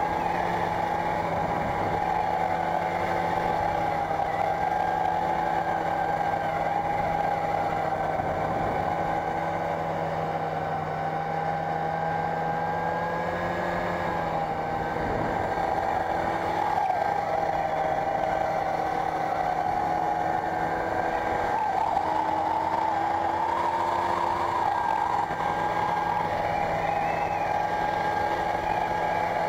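Snowmobile engine running steadily under load as the machine ploughs through deep snow. Its note wanders a little in pitch and rises briefly about four-fifths of the way through.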